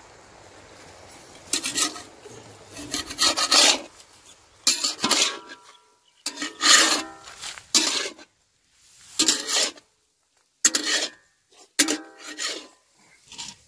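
Long flat metal spatula scraping and turning cabbage and egg scramble in a large iron kadai. About eight rasping strokes come at uneven intervals, starting about a second and a half in.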